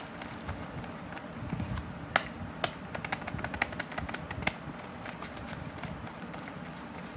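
Irregular sharp taps and clicks over a low rumbling background, with a cluster of louder ones from about two to four and a half seconds in.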